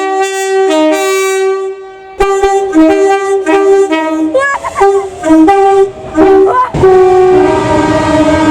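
Locomotive air horn sounding a chord, first in a blast of about two seconds, then a run of short blasts, then a long held blast starting about seven seconds in.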